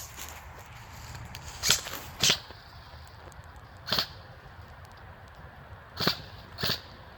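Airsoft gun shots: five short, sharp snaps fired singly, irregularly spaced one to two seconds apart, the first two loudest.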